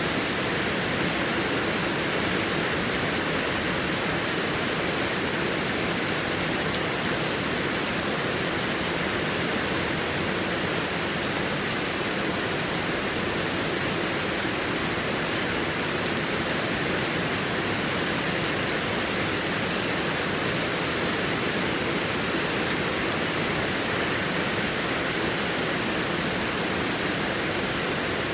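Heavy rain falling steadily, a dense even hiss of many drops with no letup.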